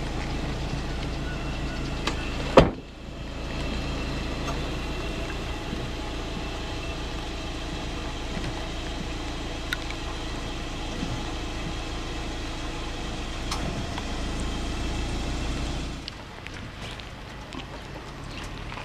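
Car driving slowly, a steady low drone of engine and tyres, with one loud knock about two and a half seconds in. About sixteen seconds in the drone drops away, leaving quieter outdoor ambience with faint ticks.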